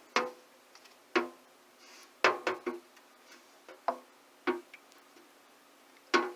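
A series of irregular sharp knocks and clicks, about eight in all, each with a brief ring, with several close together around the middle. They fit hard items being handled and set down during the rinse of a cyanotype print.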